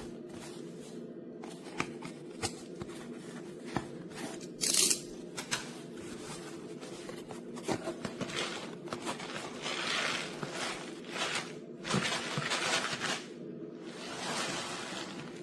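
Packaging being handled and opened: a few sharp snips and tearing sounds, the loudest about five seconds in, then longer spells of rustling and crinkling.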